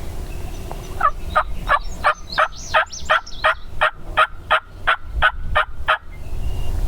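A hen turkey yelping: a long, even run of about fifteen yelps, roughly three a second, lasting about five seconds.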